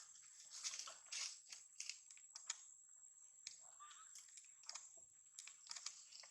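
Faint rustling and crinkling with scattered light clicks, and a brief faint squeak about four seconds in.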